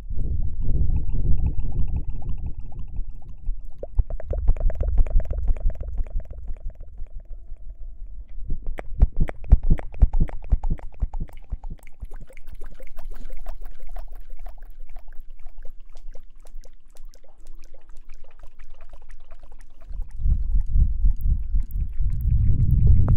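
Close-miked ASMR hair-washing sounds: wet rubbing and squishing on the microphone, muffled and rumbling, with many small crackles. These come in uneven spells, softer through the middle and louder again near the end.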